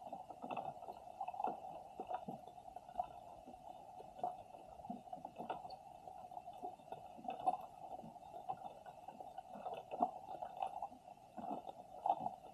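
Muffled underwater ambience picked up by a camera resting on the sea floor: a steady low hum with irregular soft clicks and knocks.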